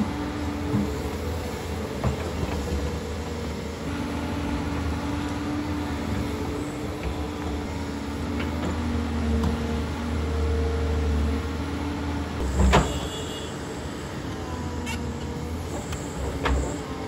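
Doosan excavator's diesel engine running at working speed, its note changing as the hydraulics take load, with a few light knocks and one sharp metallic clank about two-thirds of the way through.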